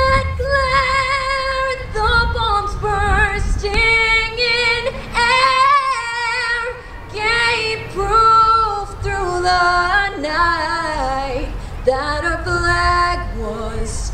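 A woman singing the national anthem solo and unaccompanied, with long held notes and vibrato.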